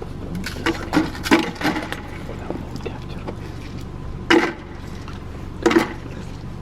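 Car cabin noise while driving: a steady low rumble of engine and road, with a few brief sharp sounds, two of them in the second half.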